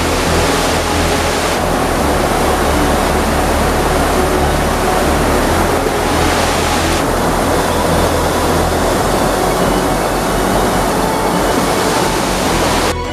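River rapids rushing over rocks: a loud, steady wash of white water. The tone of the rush shifts slightly twice, about one and a half seconds in and about seven seconds in.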